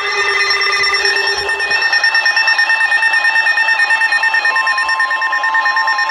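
Emergency Alert System alert tones: loud electronic alarm tones pulsing rapidly and evenly. A steady single tone joins about four and a half seconds in, as synth music-like sounds fade out in the first second or two.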